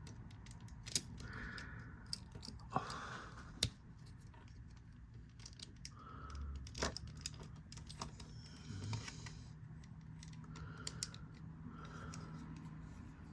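Plastic toy parts handled and clicked together as a rocket launcher is pegged onto a Transformers figure: scattered sharp clicks and light rubbing, the loudest clicks in the first four seconds.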